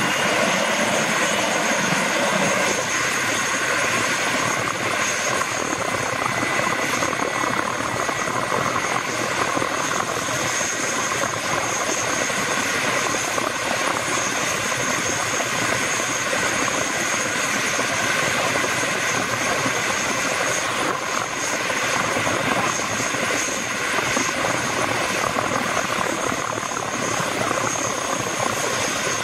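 Airbus AS350B3 AStar helicopter running on the ground with its main rotor turning: steady engine and rotor noise with a steady high whine over it.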